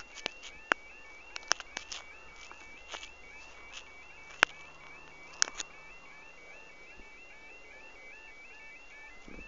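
Level crossing warning alarm sounding a steady, evenly repeating warble. Footsteps and a few sharp clicks break in, the loudest about half a second, a second and a half, four and a half and five and a half seconds in.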